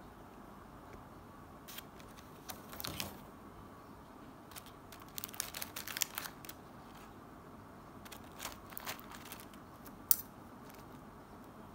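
Metal fork and knife handling food in a disposable takeaway box: scattered light clicks and crinkling rustles in short clusters, with one sharp click about ten seconds in.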